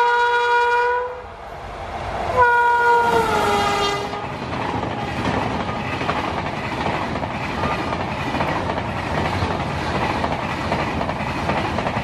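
WAP-7 electric locomotive's horn sounding as it comes up, cutting off about a second in, then a second blast at about two and a half seconds whose pitch drops as the locomotive goes by. From about four seconds on, the double-decker passenger coaches roll past with a steady wheel-on-rail clatter.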